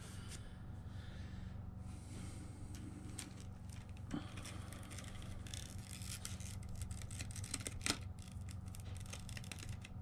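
Faint rustling, rubbing and light clicks of hands handling small objects, with a few sharper ticks about four and eight seconds in, over a steady low hum.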